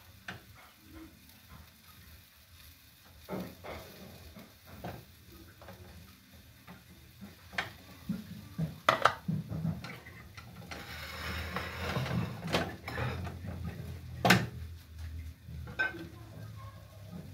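Wooden spoon scraping and knocking against a metal pot and a plastic bowl while stiff ugali is scooped out and shaped, with a few sharp knocks, the loudest late on. A short hiss comes a little past the middle.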